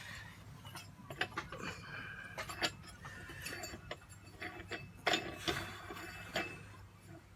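Light metallic clicks and clinks as a threaded retainer on an AL-KO caravan spare wheel carrier is spun off by hand.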